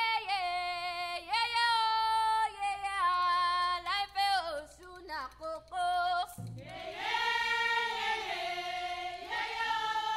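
Unaccompanied singing in long held notes that step up and down, with a short break about five seconds in before a fuller, louder held note.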